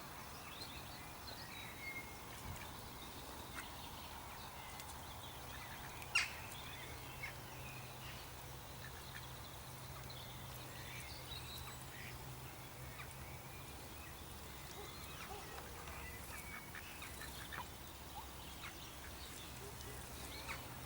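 Ducks calling faintly on the water, with scattered short bird calls over a low steady hum, and one sharp click about six seconds in.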